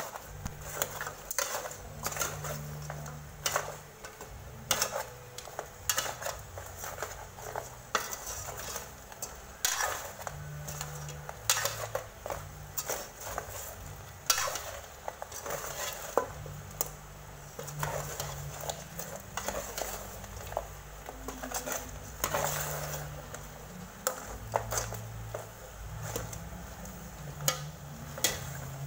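A metal ladle scrapes and clinks against an aluminium pot at irregular intervals while it stirs and turns pieces of pig's trotter in a thick braising sauce.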